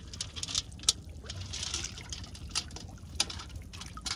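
Shallow water sloshing and splashing as someone wades and feels through it by hand, with a couple of sharper splashes.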